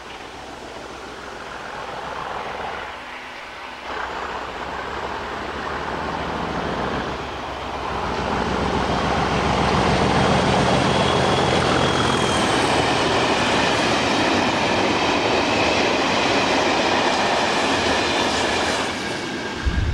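A British Rail Class 37 diesel locomotive approaches and passes under power with a train of box wagons, the engine growing steadily louder. From about halfway the wagons roll by with a high, slightly falling wheel squeal on the curve.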